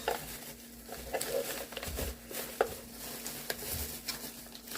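Light handling noises: scattered small clicks and soft rustling as shopping items are taken out and picked up, over a faint steady hum.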